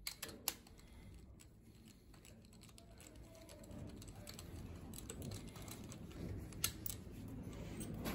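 Light metallic clicks and taps of a hand tool working at an engine's cylinder head, sharpest near the start and once near the end, over a low handling rustle that grows from about halfway.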